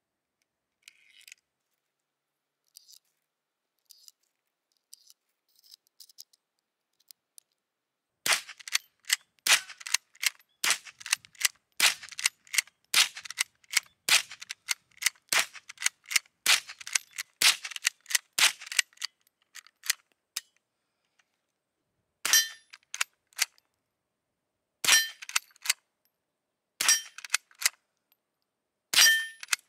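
Light clicks for the first few seconds as .22 Short cartridges go into the tubular magazine of a 1920 Remington .22 pump-action gallery gun. About eight seconds in the rifle starts firing a rapid string: sharp, light .22 cracks mixed with the clack of the pump action, about two a second for some twelve seconds. Then come four slower shots, each followed by the ringing ping of a steel target being hit.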